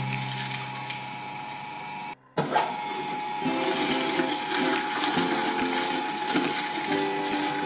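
Twin-shaft shredder running, its cutters grinding up a head of cauliflower. The sound drops out briefly about two seconds in, then the shredder runs on with a steady whine.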